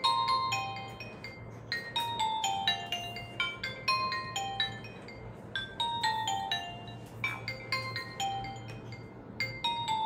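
Nokia 1280 mobile phone playing a ringtone through its small built-in speaker: a bright, bell-like melody of short notes, with a descending run of notes repeating about every two seconds.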